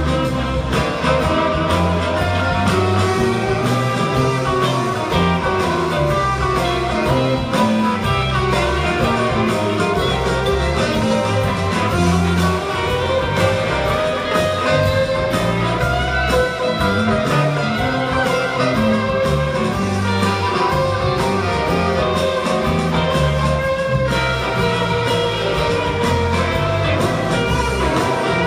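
Live band music at steady full volume: mandolin, acoustic and electric guitars over a drum kit, heard from the audience on a phone.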